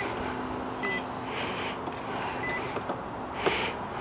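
Nissan 350Z's warning chime giving two short beeps, about a second in and again about two and a half seconds in, over a low steady hum, with the engine not started. Two brief hissy noises come between, the louder one near the end.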